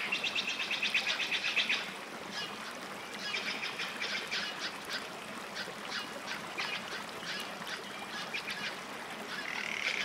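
Nightingale singing. It opens with a fast trill of repeated notes, goes on with rapid chattering phrases, and starts a long held whistle near the end.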